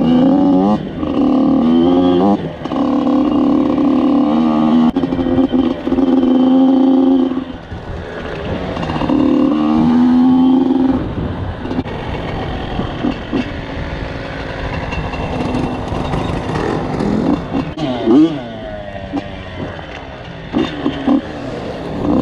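Two-stroke off-road engine under riding throttle. It holds high revs for the first several seconds with brief breaks for gear changes, drops, revs up again around ten seconds in, then runs at lower, uneven throttle with a few blips.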